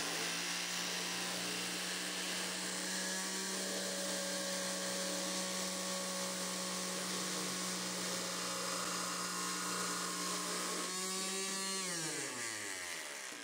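Electric palm sander running at a steady hum while bolted to a stainless steel fryer pan, shaking it as a makeshift ultrasonic parts cleaner. Near the end the motor winds down, its pitch falling as it is switched off.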